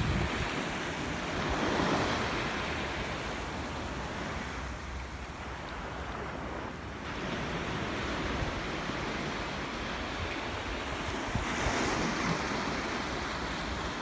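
Small waves breaking and washing up a sandy beach, swelling about two seconds in and again near the end, with wind buffeting the microphone.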